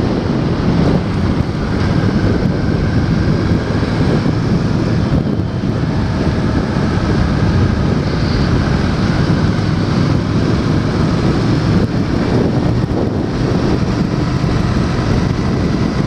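Steady rush of wind over the microphone of a 2013 Honda Shadow 750 motorcycle at cruising speed, with its V-twin engine running underneath.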